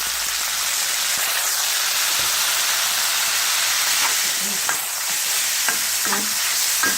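Ground pork with garlic and chili sizzling in a pan over medium-high heat, stirred with a turner, just as fish sauce goes in. A steady hiss of frying with a few light scrapes and clicks.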